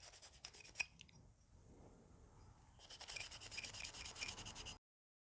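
Cleaning brush scrubbing caked powder fouling off a revolver cylinder, a quick run of short rubbing strokes near the end that cuts off abruptly; a few faint clicks before it.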